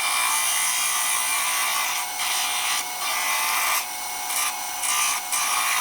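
Spindle gouge cutting a spinning piece of iroko on a wood lathe: a steady scraping hiss of shavings coming off, broken by several brief dips where the tool eases off the wood.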